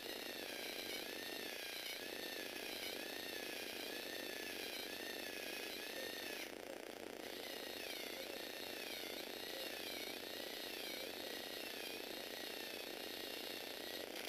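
Lego Technic model's small electric motor and plastic gear train running continuously, a gear whine that rises and falls in pitch about once a second as the linkage cycles. The whine drops out for a moment about six and a half seconds in, then carries on.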